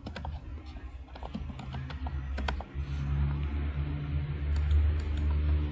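Typing on a computer keyboard: scattered key clicks, most in the first half, over a low steady hum.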